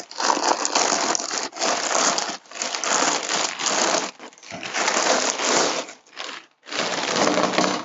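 Plastic mailer bag being pulled and torn open by hand, crinkling loudly in about six rough bursts with short pauses between them.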